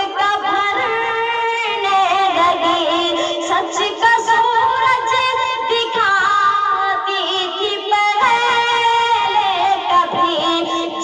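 A boy singing Urdu verse into a microphone: one high voice in long, wavering held notes that glide between pitches, with short breaks for breath.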